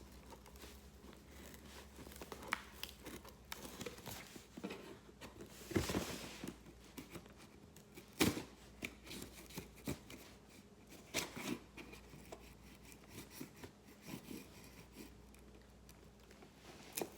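Scissors cutting into package wrapping, with scattered snips, clicks, crinkling and tearing; the loudest moments come about six and eight seconds in.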